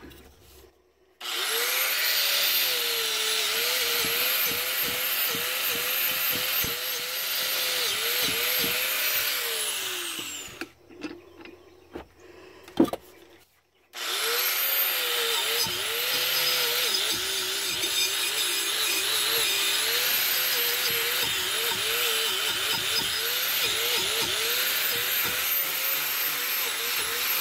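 Angle grinder with a cup wire brush scouring dirt and rust off an old axe head, its motor pitch dipping again and again as it works. It runs for about nine seconds, stops for a few seconds with a single click, then starts again and runs on.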